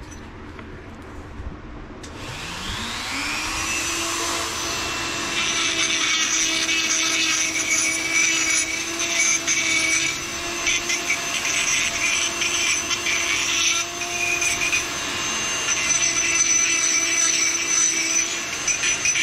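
Dremel rotary tool on a flexible shaft spins up about two seconds in, its pitch rising, then runs at a steady high whine. From about five seconds its burr grinds unevenly against the drilled holes in an aluminum tube, deburring their edges.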